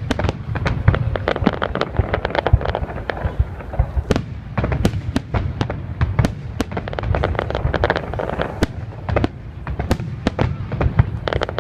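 New Year's fireworks going off without a break, dozens of overlapping bangs and crackles over a continuous low rumble.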